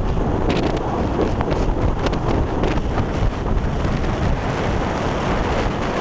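Wind buffeting the microphone: a steady, fairly loud low rumble with small irregular gusts.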